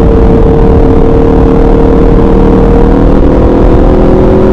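Motorcycle fitted with an SC Project aftermarket exhaust, running loud at a steady engine speed, its pitch holding nearly constant.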